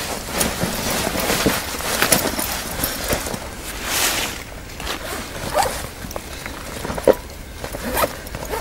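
Footsteps through dry fallen leaves, then a backpack's zipper being worked and the pack rummaged, heard as a string of short, irregular rasps and rustles.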